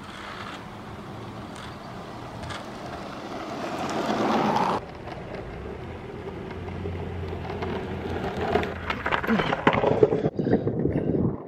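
Skateboard wheels rolling over coarse asphalt, a rough rumble that grows louder as the board approaches and passes close by, rattling and clattering near the end.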